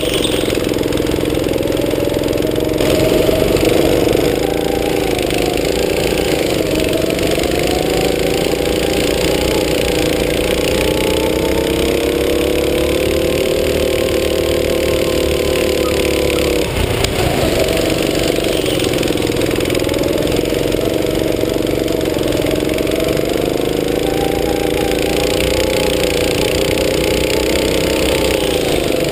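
Go-kart engine running under load, heard from the driver's seat, its pitch rising and falling with the kart's speed; the engine note drops briefly a little over halfway through, then picks up again.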